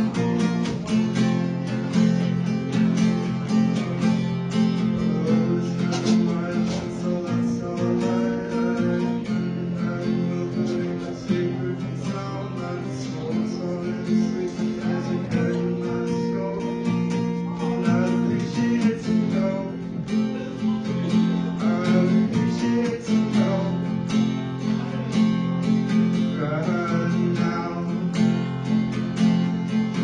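Acoustic guitar strummed steadily, with a voice singing over it at several points.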